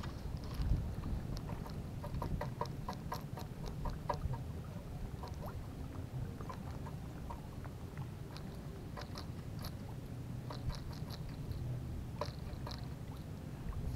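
Spinning reel being wound as a lure is retrieved, giving clusters of small irregular clicks and ticks over a low rumble of wind on the microphone.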